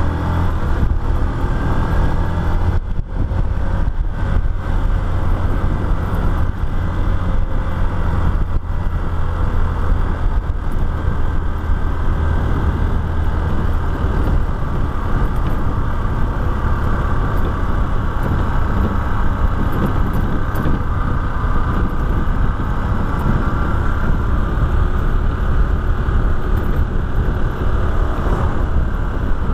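Motorcycle engine running steadily while riding along a street, with wind and road noise.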